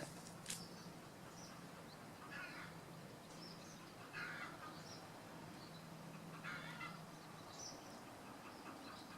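Chickens calling faintly: three short calls about two seconds apart with a few thin high chirps between, over a low steady hum.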